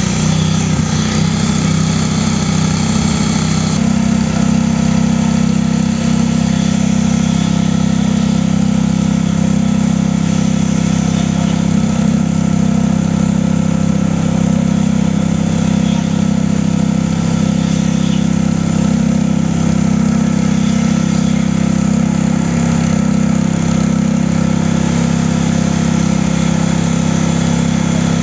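Small engine of a concrete poker vibrator running steadily at a constant speed, driving the vibrating needle through its flexible shaft into freshly poured concrete.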